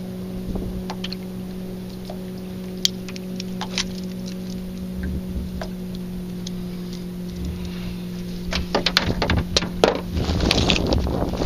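A boat motor hums steadily with a low, even tone, over small sharp metal clicks of pliers working a hook out of a bass's mouth. Near the end the hum fades and a clatter of knocks and rustling takes over as the fish is handled.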